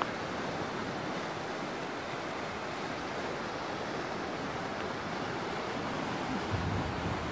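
Fast, turbulent river water rushing over shallow stony rapids: a steady, even rush.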